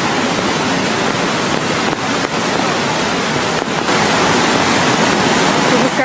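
Swollen mountain river and cascade rushing over rocks: a loud, steady rush of whitewater.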